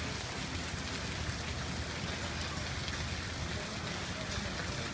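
Steady rain falling: an even hiss with a few sharp drop ticks, over a low rumble.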